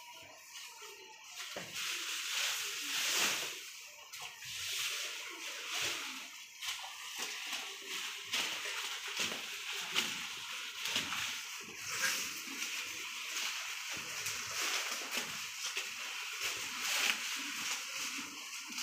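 Dairy cows eating fresh-cut green grass from a feed trough, with chewing and rustling of the leaves in an irregular run of short crackly noises.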